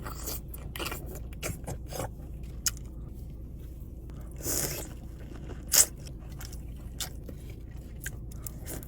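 Close-miked eating of a seafood boil: wet chewing with many small clicks and smacks, and a couple of louder short crunches or scrapes partway through.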